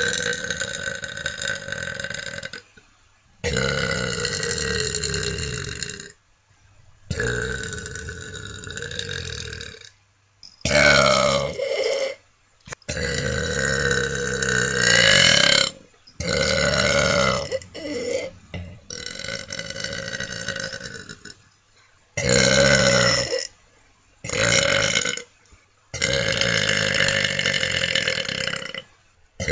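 A person burping over and over: about ten long, drawn-out burps, each lasting one to three seconds, with short pauses between. A few of them slide up or down in pitch.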